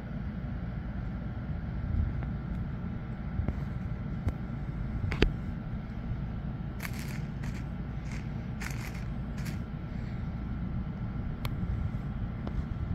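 Steady low background rumble, with a few sharp clicks and several short hissing sounds between about seven and nine and a half seconds in, typical of a phone being handled while filming.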